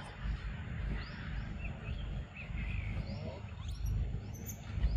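Outdoor ambience: scattered short, high bird chirps, a few of them rising quickly, over a steady low rumble.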